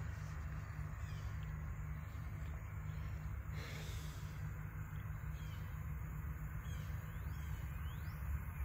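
Rural outdoor ambience: a steady low rumble, with a brief rush of noise about four seconds in and a few short bird chirps near the end.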